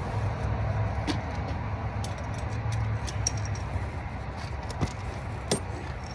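Steel tire-chain links clinking and rattling in short sharp clicks as the chain is fastened by hand at the bottom of a truck tire, the sharpest clink about five and a half seconds in, over a steady low rumble.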